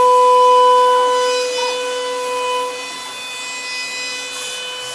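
CNC router spindle cutting a wooden door panel: a steady whine with the bit cutting through the wood. It is loudest for the first two and a half seconds, then eases off.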